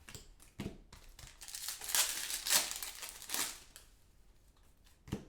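Crinkling and rustling of a foil trading-card pack wrapper being handled and torn, for about three seconds, followed by a single sharp click near the end.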